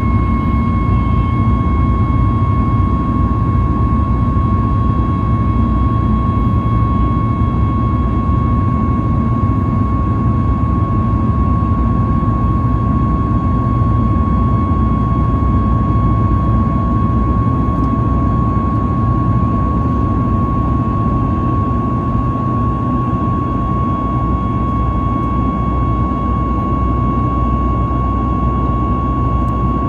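Boeing 737 MAX 9's CFM LEAP-1B turbofan engine at climb thrust after takeoff, heard inside the cabin beside the wing: a steady low roar with a constant high whine above it.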